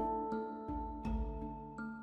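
Background music: slow, ringing pitched notes, a new one struck every half second or so and left to fade.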